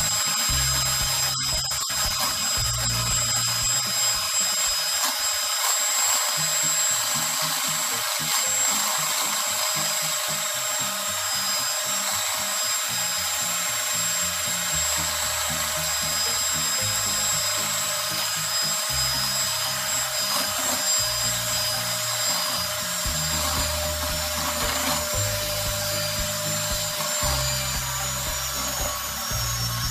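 AEG electric hand mixer running steadily, its beaters working a flour-and-oil dough, with a steady whine. Background music with a low bass line plays underneath.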